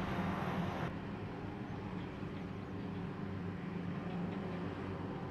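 Krone Big X forage harvester working in standing rye, its engine and chopper giving a steady low drone, with a tractor running alongside. About a second in the higher hiss drops away abruptly and the drone carries on.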